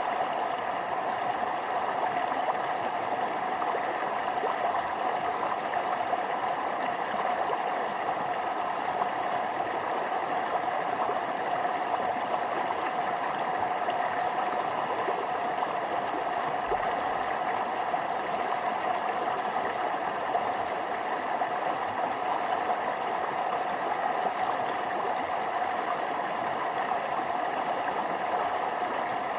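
Forest stream running steadily over small waterfalls, a continuous even rush of water with no breaks.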